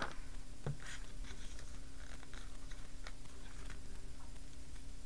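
Faint clicks and rustles of small plastic toy parts and a sticker sheet being handled, with a soft knock about two-thirds of a second in, over a steady low hum.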